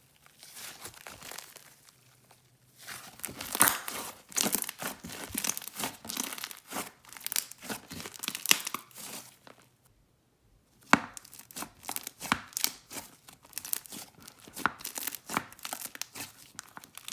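Clay-based slime being squished and pressed by hand, giving a dense run of crackles and bubble pops, with a brief pause about ten seconds in.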